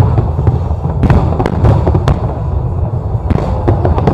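Aerial fireworks display: many shells bursting in quick succession, sharp bangs and crackles over a continuous low rumble of echoing explosions.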